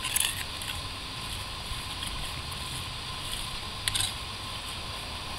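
A small garden hand tool and gloved hands scraping and raking soil off the edge of a stone grave marker, with brief scratchy scrapes near the start and again about four seconds in, over a steady background hum.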